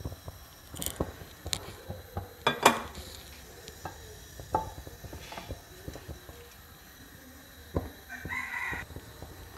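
Faint clicks and knocks as cooking oil goes into a frying pan and the pan is tilted to spread it, with a rooster crowing once in the background near the end.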